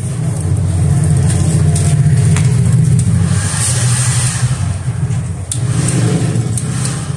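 Yamaha motorcycle engine running, louder for the first few seconds and briefly easing off about five and a half seconds in.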